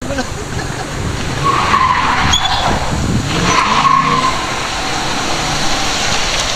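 Car engine running with two drawn-out tyre squeals, the first about one and a half seconds in and the second about three and a half seconds in.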